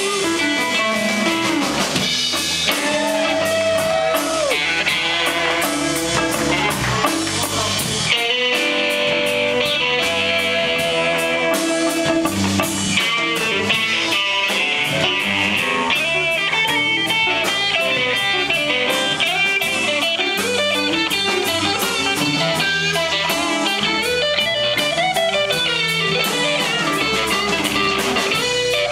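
Live blues band playing: an electric guitar plays a lead of held and bent notes over drums and bass.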